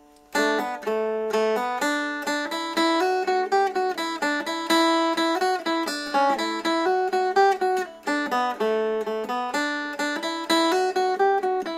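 Mountain dulcimer played solo: a quick picked fiddle-tune melody starting about a third of a second in, with steady ringing notes held underneath it.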